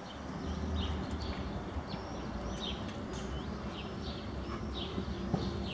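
Small birds chirping again and again in short calls over a low rumble.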